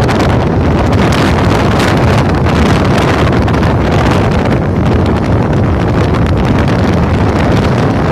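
Loud, steady wind buffeting the microphone, with a heavy low rumble underneath.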